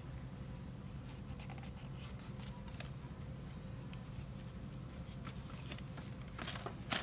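Cloth rag rubbing and scraping over the intake manifold's gasket sealing surface, light scratchy wiping with small clicks, cleaning it so the new plenum gasket seals. A louder rustling scrape comes near the end, over a steady low hum.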